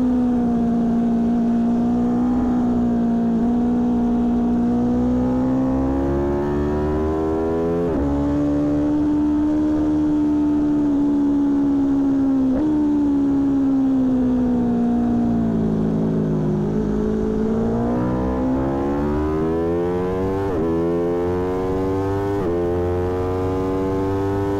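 A 2019 Aprilia Tuono V4 1100 Factory's V4 engine under hard acceleration on track. Its pitch climbs, then drops sharply at each upshift, about 8 and 12 seconds in. It falls away as the throttle eases off around 16 seconds in, then climbs again with two quick upshifts near the end, heard a little distorted from a microphone in the front fairing.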